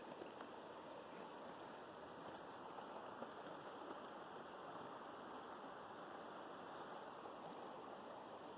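A river flowing: a faint, steady rush of water.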